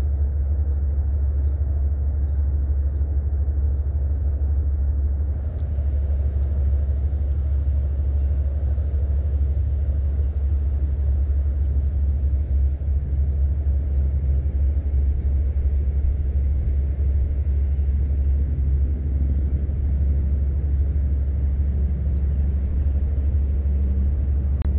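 A steady low rumble, without speech.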